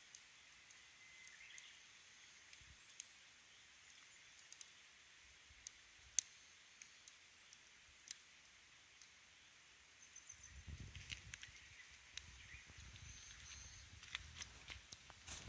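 Wood campfire crackling quietly: sparse, irregular pops over a faint high hiss, the sharpest about six seconds in. From about ten seconds a low rumble joins the pops.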